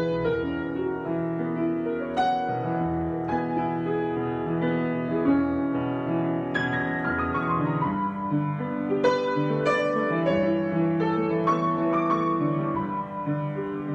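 Solo piano improvisation: a slow flow of struck chords and melody notes, left to ring and overlap.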